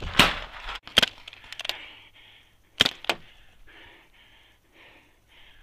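Paintball markers firing: a loud crack at the start, single sharp pops about a second in and a little later, then a quick pair near three seconds, over softer rustling between shots.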